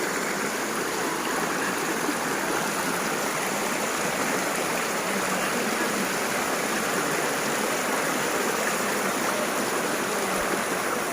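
Water of a small waterfall and stream running steadily, an even rushing noise without a break.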